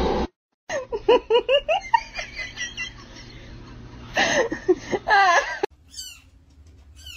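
A person laughing in two bouts, about a second in and again about four seconds in.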